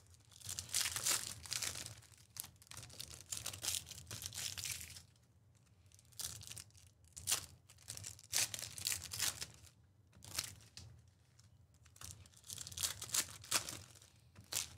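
Plastic and foil trading-card packaging being torn open and crinkled by hand, in irregular bursts with short pauses and a few sharp rips.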